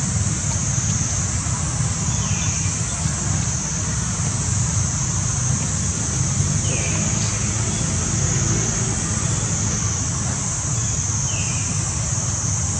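Steady outdoor background noise: a low rumble and an even, high hiss, with three faint short chirps.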